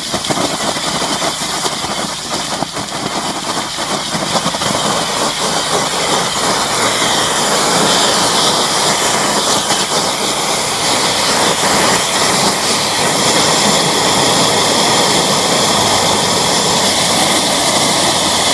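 High-pressure sewer jetter blasting water through a LaserJet drain-cleaning nozzle into a gravel-choked drain: a loud, steady hiss and spray of water, with the jetter's engine running underneath. It is uneven at first, then steadier and a little louder from about seven seconds in.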